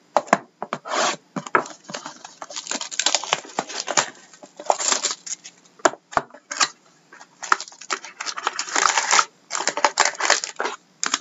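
Plastic shrink wrap crinkling and tearing as a sealed cardboard box of trading cards is unwrapped, then the box is opened and foil card packs are pulled out, in irregular bursts of crackling rustle.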